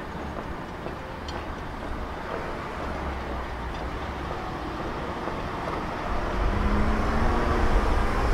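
Outdoor street noise with a low vehicle rumble that swells louder about six seconds in, carrying a steady low engine hum near the end.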